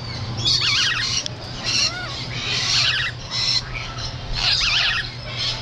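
Several parrots squawking and screeching in a run of short, rapidly warbling high calls, about one or two a second, over a steady low hum.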